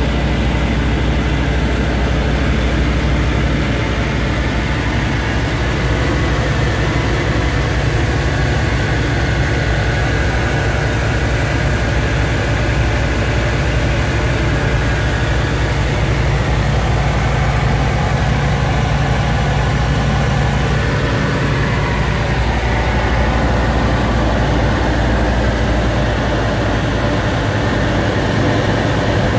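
Engine and propeller of a Texan Top Class light aircraft running steadily at cruise power, heard from inside the cockpit.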